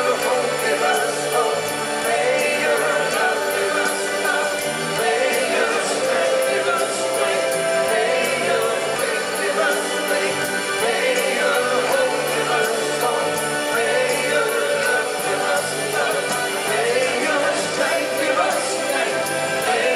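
Live rock band playing a slow anthem, with electric and acoustic guitars, violin and accordion, and several voices singing together. Heard from the audience in a large arena.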